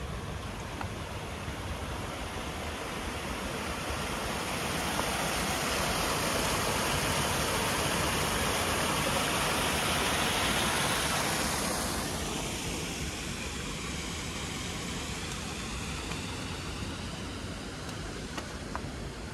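A vehicle passing slowly on a wet, snowy street: its tyre hiss swells over several seconds, then falls away about twelve seconds in, over a steady low rumble of street noise.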